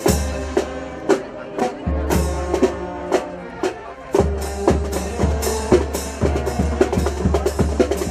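Marching band playing a march: brass holding chords over drums beating about two strokes a second. About four seconds in, the bass drum comes in fuller and the drumming gets busier.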